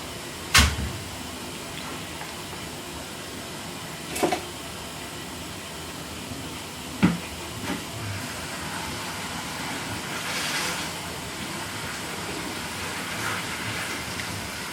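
Steady low hiss broken by three sharp knocks, about half a second in, about four seconds in and about seven seconds in, the first loudest.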